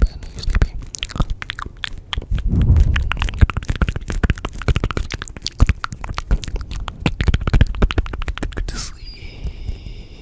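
Dense, irregular crackling and crunching clicks of layered ASMR sounds, with a low rumble under them a couple of seconds in. A little before the end the crackling stops suddenly and a steady high-pitched hum of several tones takes over.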